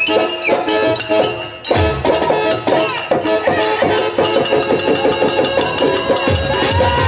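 Stage-play music: a pitched melody with gliding notes over a fast, even rhythm of jingling hand percussion, with low drum beats now and then. It dips briefly about a second and a half in, then carries on.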